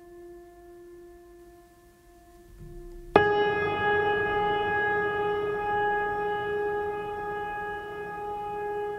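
A steady, sustained horn-like tone with overtones, which jumps suddenly about three seconds in to a louder, slightly higher tone and holds there.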